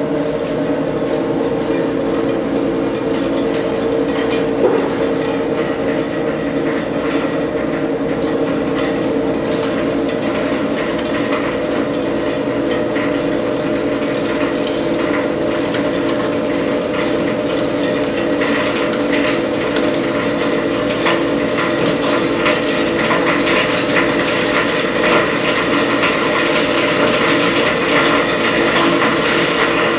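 SEM Model 2-SSD solid-state disintegrator running with a steady motor hum while its cutting chamber crunches and rattles through memory modules and circuit boards fed in by hand. The crunching gets denser in the second half.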